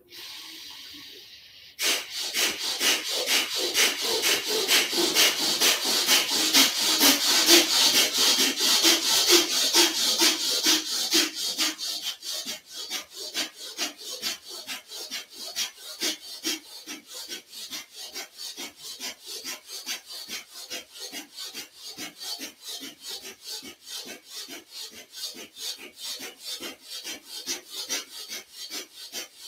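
A man doing Bhastrika pranayama: rapid, forceful bellows breathing in an even rhythm of short rushing breaths. It starts about two seconds in, is loudest for the first ten seconds or so, then goes on more softly.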